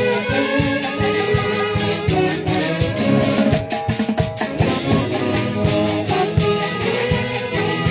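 Live Peruvian dance orchestra playing: a horn section carries the tune over a steady beat.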